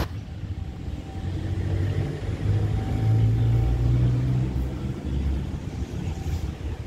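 Low engine rumble of a passing motor vehicle, swelling about three seconds in and fading toward the end.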